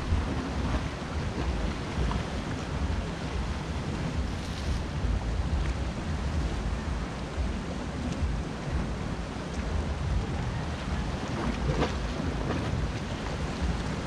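Sea waves washing against a rocky shore, with steady wind rumbling on the microphone.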